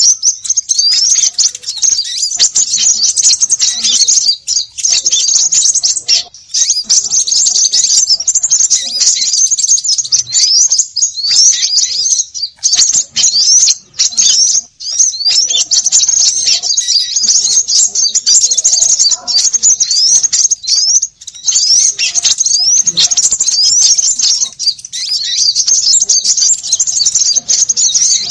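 Small-bird lure recording: a dense, noisy chorus of many small birds chirping at once, rapid high rising chirps overlapping almost without a pause.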